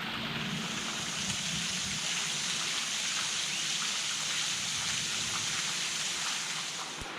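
Steady rushing hiss of falling water from a waterfall. It brightens about half a second in, and faint ticks and patters sound over it.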